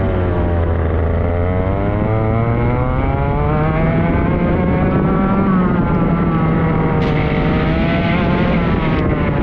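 Kart engine heard from onboard, its pitch falling in the first moment as it slows, then climbing steadily for a few seconds. It dips again about six seconds in and climbs once more.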